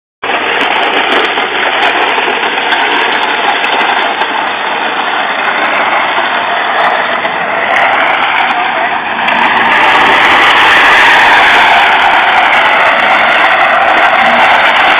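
A car drifting around at close range: engine running hard and tyres screeching, loud throughout and growing louder about ten seconds in.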